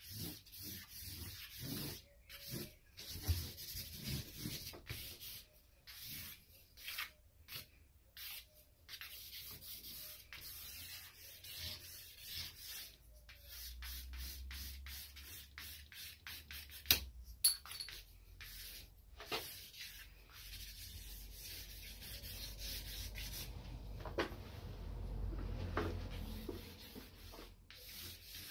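Willow charcoal scratching across a large sheet of cartridge paper in many short strokes with brief pauses between them, then in longer continuous stretches of line and hatching later on.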